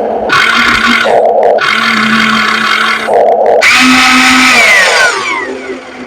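RC model excavator's hydraulic pump and motors working in three loud bursts with a steady hum underneath, whining down in pitch near the end.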